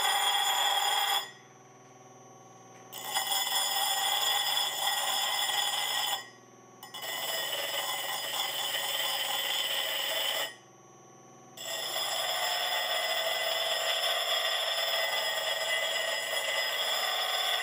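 Abrasive dressing stick pressed against the edges of the spinning HR8 honing wheels to chamfer them: a ringing scrape in four spells of a few seconds each. In the short pauses between, the honer runs on more quietly.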